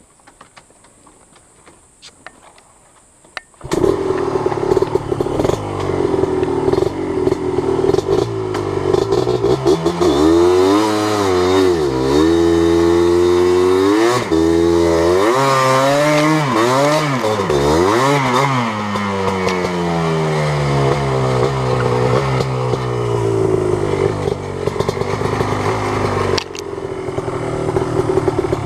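Yamaha Blaster ATV's single-cylinder two-stroke engine, coming in suddenly after a few quiet seconds, then revving up and down again and again with rising and falling pitch, and running steadier near the end.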